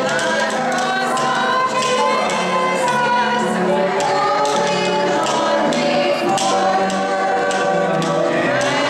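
Music with several voices singing together, over a steady clicking beat.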